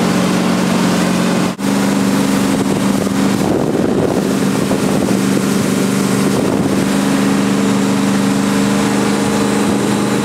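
Fiberglass jet boat's inboard engine running steadily under way, with a steady rush of wind and water. The sound cuts out for an instant about a second and a half in, and the engine note comes back slightly higher.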